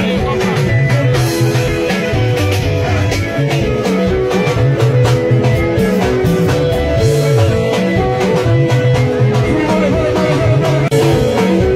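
Band music for dancing: electric guitar and a moving bass line, with some singing, playing without a break.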